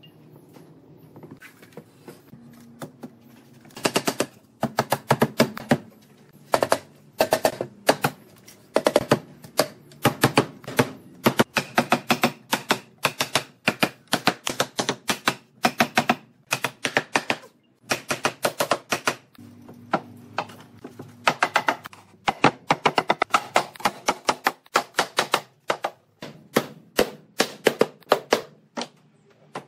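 Rubber mallet knocking on the hardwood frame of a slatted bed panel, driving the glued tenon joints home. The strikes come in quick runs of several a second, starting about four seconds in, with short pauses between runs.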